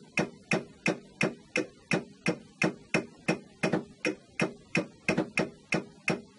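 Steady run of short clicks, about three a second: a stylus tapping the rotate arrow on a Pfaff Creative Sensation embroidery machine's touchscreen, each tap turning the design a little further.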